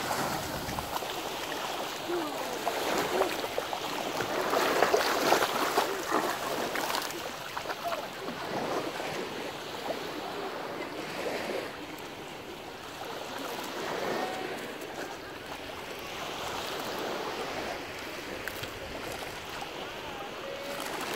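Small waves breaking and washing over a shallow sandy shore, the surf swelling and fading every few seconds and loudest about five seconds in.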